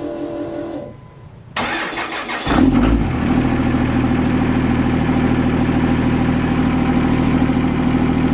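2001 24-valve Cummins 5.9 L inline-six turbodiesel cold-started after three days unplugged in about 20°F weather. The freshly rebuilt Denso starter, with new contacts and plunger, cranks for about a second, and the engine fires at once, about two and a half seconds in, then settles into a steady idle.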